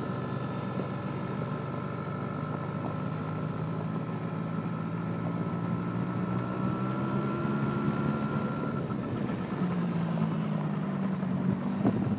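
Small youth ATV engine running steadily at low speed, with a thin whine above the engine note; a few knocks near the end.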